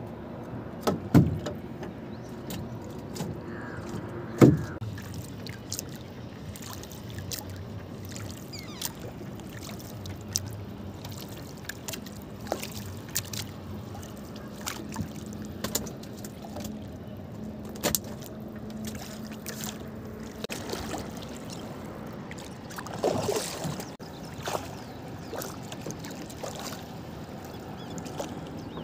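Small wooden boat on calm water, with scattered clicks and knocks from fishing line and gear being handled in the boat. Two loud knocks come in the first five seconds, and a short noisy burst near the end.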